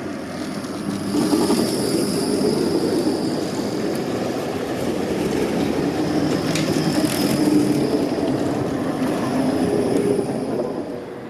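TPG Bombardier Cityrunner (Flexity Outlook) low-floor articulated tram rolling slowly past at close range: a steady rumble of wheels on the rails with a thin high whine above it.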